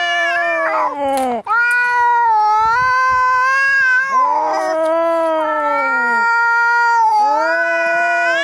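Two cats yowling at each other in a fight: long, wavering caterwauls, one low-pitched and one higher, overlapping almost without a break. These are angry threat yowls.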